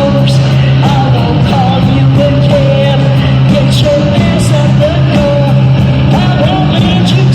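Rock band playing loud and live: drums with regular cymbal hits, a steady repeating bass line, and a wavering lead line over the top.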